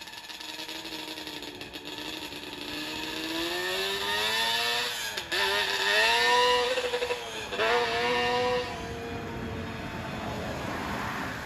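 A high-revving vehicle engine accelerating hard, its pitch climbing and dropping sharply twice as it shifts up, about five and seven and a half seconds in. It grows louder toward the middle, then fades as it moves away.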